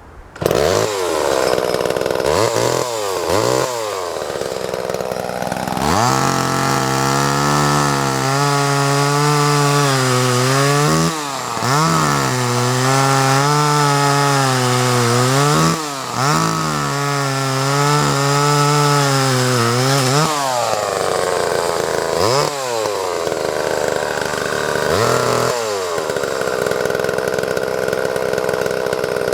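Vintage Homelite XL two-stroke chainsaw running. It idles with quick throttle blips, then is revved high for about fourteen seconds, dropping off briefly twice. It settles back to idle with a couple more blips.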